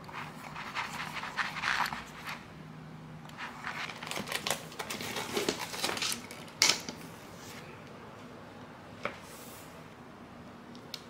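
A utility knife blade scraping and crackling as it cuts self-adhesive vinyl film, mixed with the stiff vinyl sheet crinkling as it is handled, with a sharp tap about two-thirds of the way through. The last few seconds are quieter, with one faint tick.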